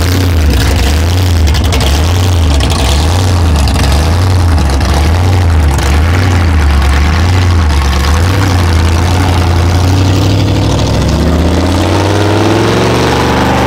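Hot-rodded Superior hearse's exposed engine running loud at a lumpy idle as it rolls slowly away, its low note swelling and sagging about once a second, then rising in pitch as it speeds up near the end.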